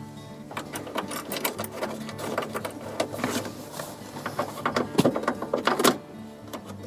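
Rapid, irregular mechanical clicking and rattling of hand-tool work on the seatbelt anchor bolts, over a steady low hum, with the loudest clatter about five seconds in.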